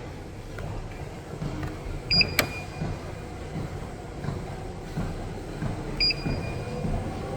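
Treadmill running with a low hum and dull thuds, and two short electronic double beeps from its console about two and six seconds in.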